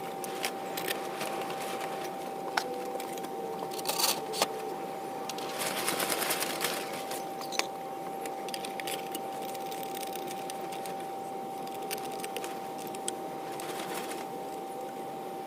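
Small metal lantern burner parts clinking as they are handled and dropped into a vinegar soak, with a brief rush of noise about six seconds in, over a steady high background hum.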